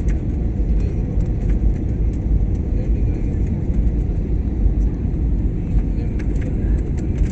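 Steady low rumble of airliner cabin noise in flight: the engines and the rush of air past the fuselage, with a few faint clicks and rattles.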